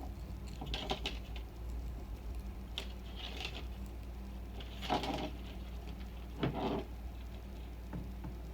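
Light clicks and rustles of the small plastic and metal parts of an R/C nitro pull-start being handled while its recoil spring is wound by hand, in four or five short separate bursts over a steady low hum.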